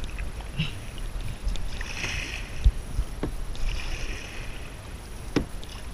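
Kayak paddle strokes: the blades swish through calm water about two seconds in and again near four seconds. A few knocks and thumps sound in between, the sharpest near the end.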